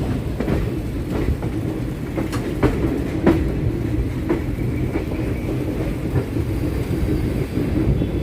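Chennai MRTS electric suburban train running: a steady low rumble with irregular sharp clicks of the wheels over rail joints, and a faint whine near the middle.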